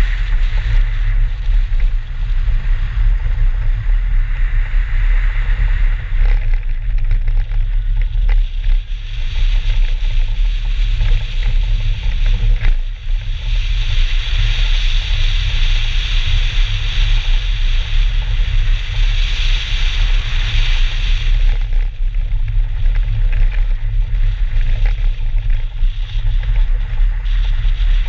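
A BMW 320 rally car driving fast on a snow-covered track, heard through a camera microphone mounted outside the car. Wind buffets the microphone with a heavy, steady low rumble, mixed with engine and tyre noise. A hiss swells about halfway through and fades again a few seconds later.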